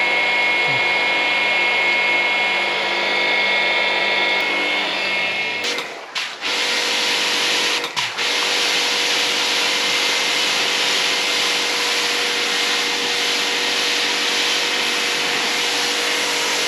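Texum TX-50D electric pressure washer running, its 2200-watt induction motor and pump humming steadily. About six seconds in the sound breaks off briefly twice, then goes on as a steadier hiss-like running noise with a lower hum.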